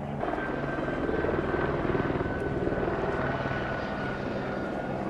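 Helicopter flying overhead: a steady engine and rotor din, with a thin turbine whine that slowly falls in pitch.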